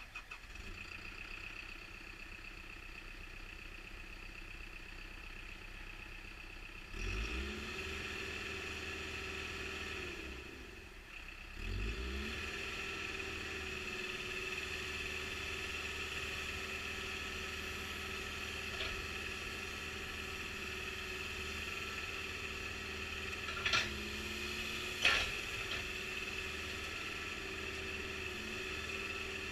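CAT 420E backhoe loader's diesel engine running, picking up speed about a quarter of the way in. It drops back briefly and picks up again, then runs steadily. Two sharp knocks come a little over a second apart near the end.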